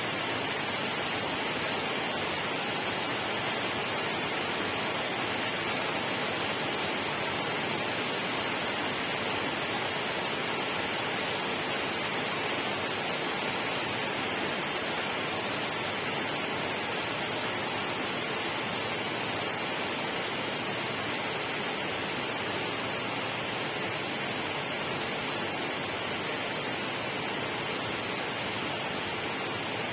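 Steady, unbroken rushing of water, an even hiss with no separate drops, splashes or other events.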